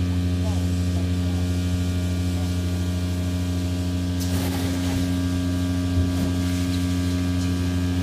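Quiet Cube 200 industrial vacuum running steadily with a low, even hum while its hose sucks up sand. About four seconds in, a brief rush of hiss as sand is drawn into the hose.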